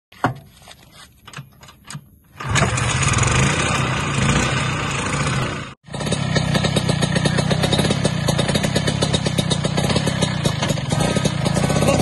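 Vintage Vespa scooter's two-stroke engine being kick-started: a few faint knocks, then it catches about two and a half seconds in and runs loudly. It cuts out briefly near the middle, then runs on with a fast, even firing beat.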